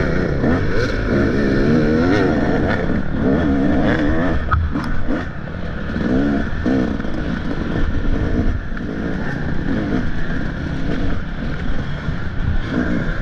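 Motocross dirt bike engine revving up and down repeatedly as it is ridden around the track, with a brief sharp click partway through.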